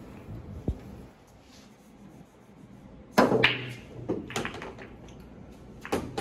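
Pool break shot: a sharp crack about three seconds in as the cue ball hits the racked balls, followed by a rapid clatter of balls clicking against each other and the cushions for about a second, with a few more ball knocks near the end.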